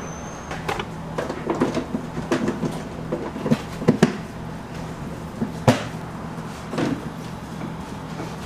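Kitchen work sounds: irregular knocks, taps and light clatter, with a sharp knock about four seconds in and a louder one near six seconds, over a steady low machine hum.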